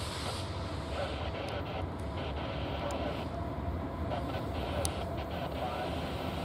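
Diesel freight locomotives pulling an intermodal train, engines running with a steady low rumble as the train rolls closer, with a few sharp clicks scattered through.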